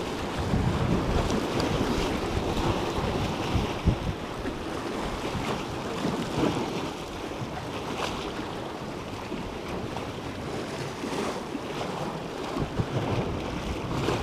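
Small waves breaking and washing over the boulders of a rock breakwater, with steady wind rumbling on the microphone.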